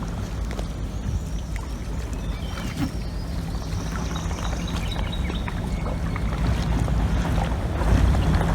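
Water lapping and splashing around a kayak, with a low rumble of wind on the microphone and scattered small knocks, getting a little louder near the end.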